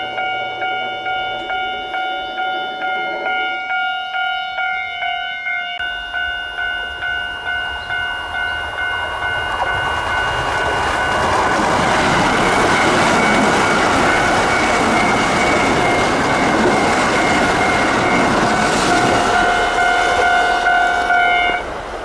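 Japanese level-crossing warning bell ringing steadily at a little over two rings a second. About ten seconds in, a Kintetsu Osaka Line train passes, its rumble and wheel noise swelling over the bell. The bell and train noise cut off just before the end.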